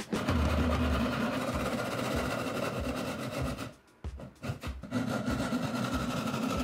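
Electric saw running and cutting through wood, a steady motor whine over the rasp of the blade. It cuts twice, with a short stop a little under four seconds in.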